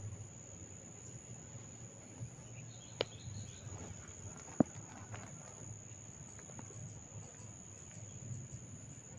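Hair cracking: two sharp cracks about a second and a half apart as tufts of hair are pulled taut against the scalp, the second crack louder.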